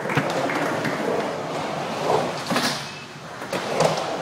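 Skateboard wheels rolling across a concrete bowl, with a few sharp clacks of the board in the second half.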